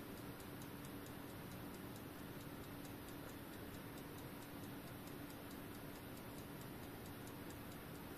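Junghans wall clock movement with a balance-wheel escapement, ticking faintly in quick, even beats. Its balance is swinging with a low amplitude, which the repairer fears means it will never run accurately and hopes will improve as it runs in.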